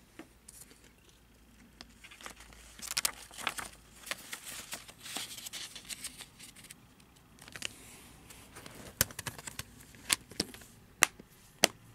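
Plastic Blu-ray case and its paper cover insert being handled: rustling and crinkling of the paper against the plastic, with scattered clicks and snaps of the case, the sharpest several coming in the last few seconds.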